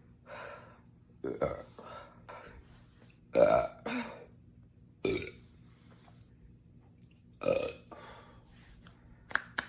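A woman burping: a string of about ten short burps with pauses between them, the loudest about three and a half seconds in.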